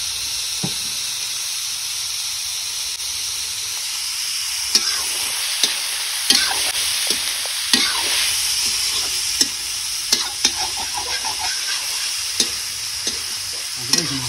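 Pieces of pork sizzling in hot oil in a large black metal wok, stirred with a metal spatula. From about a third of the way in, the spatula scrapes and knocks against the pan again and again over the steady sizzle.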